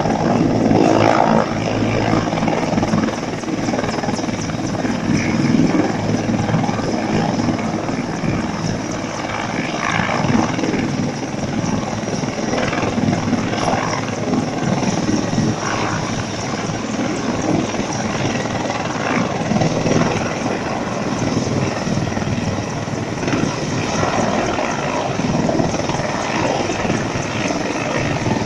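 Mil Mi-35 helicopter's twin turboshaft engines and rotors running steadily and loud, with its rotors turning.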